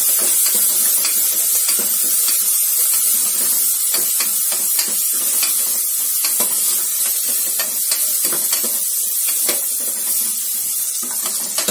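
Green chillies, curry leaves and whole spices sizzling in hot oil in an aluminium pressure cooker, a steady hiss. A metal ladle stirring scrapes and clicks against the pan now and then.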